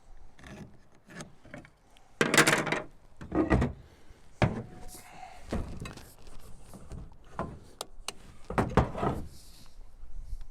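2x4 lumber being handled: a series of wooden knocks, clatters and scrapes, the loudest about two to four seconds in and again near the end.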